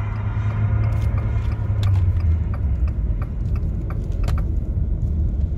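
Car cabin rumble while driving, a steady low drone from the road and engine, with scattered light clicks and ticks.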